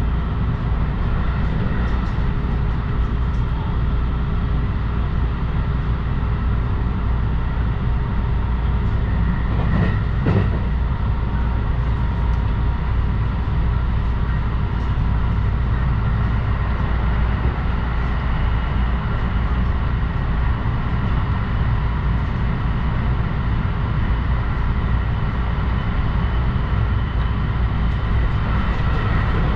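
Electric passenger train running steadily, heard from inside the carriage: a continuous low rumble with a faint steady hum. There is one brief knock about ten seconds in.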